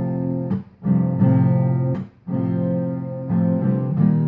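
Acoustic guitar strumming chords, with two short breaks where the sound drops away.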